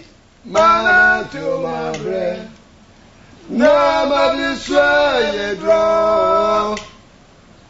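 A man singing unaccompanied in two phrases: a shorter one from about half a second to two and a half seconds in, then a longer one from about three and a half seconds that ends on a held note.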